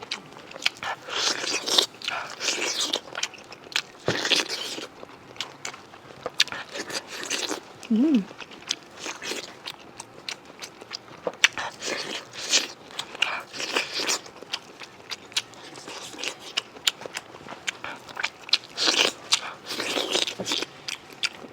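Close-miked eating: a long run of irregular crunchy bites and chewing, with sharp crackles.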